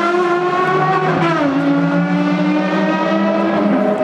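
Ferrari FXX's V12 engine running at a steady note as the car pulls away, its pitch stepping down about a second in and again near the end.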